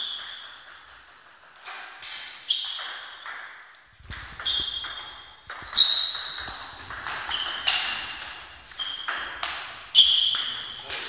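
Table tennis ball pinging off bats and table: a few single taps at first, then from about four seconds in a rally of quick, sharp pings about two a second.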